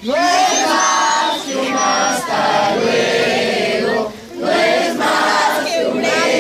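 Group of scouts singing together in unison, pausing briefly about four seconds in before starting again.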